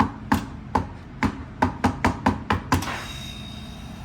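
Fingers tapping sharply and repeatedly on a commercial refrigerator's digital temperature controller, about ten quick taps that stop about three seconds in. A low steady hum with a faint high whine continues underneath.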